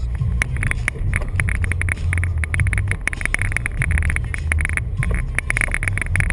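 Toyota Tacoma's 2.7-litre four-cylinder engine running steadily as the truck drives over soft sand, heard from inside the cab, with a fast clatter of rattles and knocks over the bumps.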